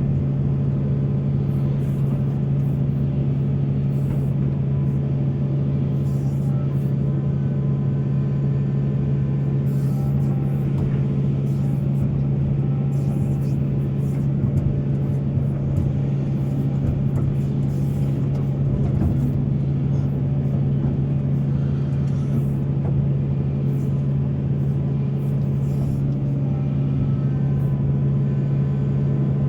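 Heavy diesel engine of mining machinery running steadily under work, a constant low drone with no breaks.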